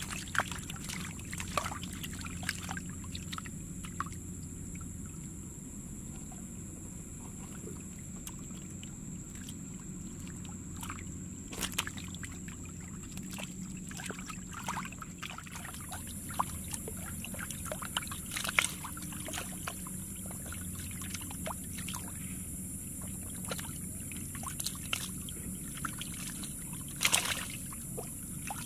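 Muddy water rushing steadily through a narrow channel into a fish trap, with fish splashing and slapping in the shallow water again and again; the loudest splash comes near the end.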